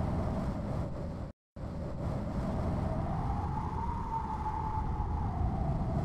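Desert wind sound effect: a steady rush with a whistling howl that slowly rises and falls. It cuts out for a moment about a second and a half in.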